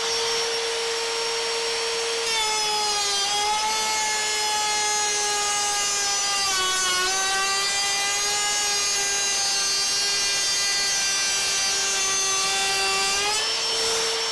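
Ryobi 18-volt ONE+ cordless trim router with a slot-cutter bit, running with a steady high whine. About two seconds in it starts cutting a slot along the edge of a wooden board, and the pitch dips slightly under the load. Near the end the cut finishes and the pitch climbs back as the router runs free again.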